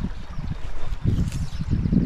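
Wind buffeting the microphone: an uneven low rumble that swells and drops in gusts, strongest in the second half.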